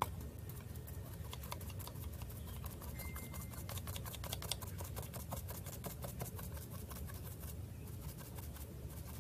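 A stencil brush dabbed quickly and repeatedly through a paper stencil onto a wooden board, giving a steady run of soft, fast taps with a light scratch of bristles.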